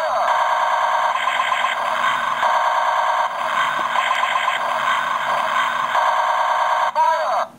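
Knockoff GoBots Convertible Laser Gun (Robo Gun) toy running its battery-powered electronic sound effect: a looping warbling tone that changes pattern every second or so. It cuts out briefly near the end and restarts with a rising sweep.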